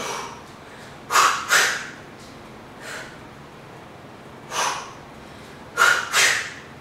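Sharp exhales in time with punches during a hook–uppercut drill: two quick breaths close together for each hook and uppercut, about a second in and again near the end, with single softer breaths between.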